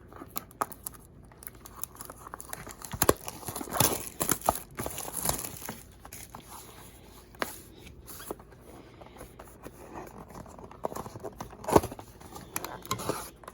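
Sealed trading-card box being torn open by hand: crinkling wrap and tearing cardboard, with scattered sharp snaps, the loudest about three, four and twelve seconds in.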